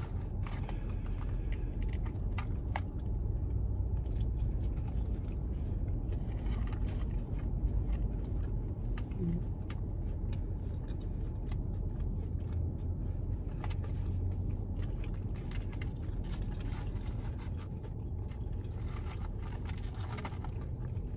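Steady low rumble inside a car cabin, with scattered small clicks and scrapes of food being handled and eaten from a paper tray.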